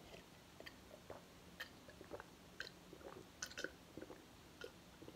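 A person gulping down juice from a glass: a string of faint swallowing gulps, about two a second.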